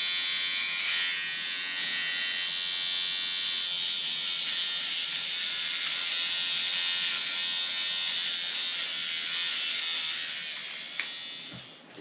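Small electric facial hair trimmer buzzing steadily as it is worked over the face, dying away near the end, followed by a single click.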